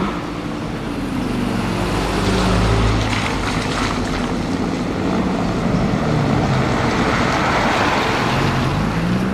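BMW M5 F90's Stage 2-tuned twin-turbo V8 running under way. The engine pitch falls over the first couple of seconds, holds and wanders, then rises again near the end.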